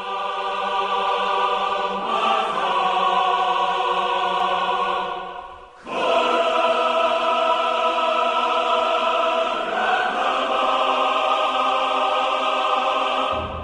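Choir music of long held chords. It shifts to a new chord about 2 seconds in, dips and comes back with a fresh chord about 6 seconds in, shifts again about 10 seconds in, and falls away near the end.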